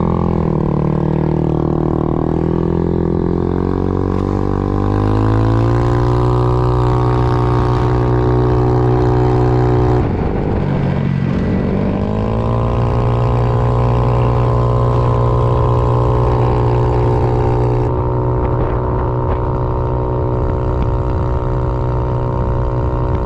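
80cc big-bore GY6 scooter's single-cylinder four-stroke engine pulling away under full throttle. Its pitch rises over the first five or six seconds and then holds steady while the speed keeps climbing. About ten seconds in the engine note dips and climbs back, then it runs steady near its top speed of the run.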